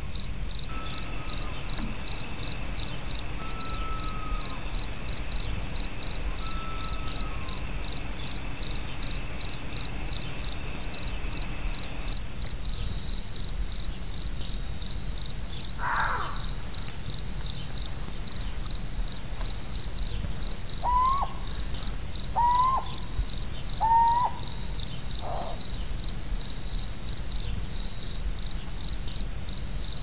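Nature ambience of insects chirping in a steady pulse, about three chirps a second, with short bird whistles now and then. The background changes about twelve seconds in, and three quick bird notes come a little past twenty seconds.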